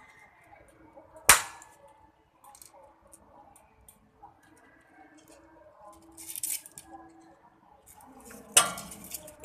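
Toy shotgun firing plastic pellets: two sharp cracks, one about a second in and one near the end, with a brief rattle between them.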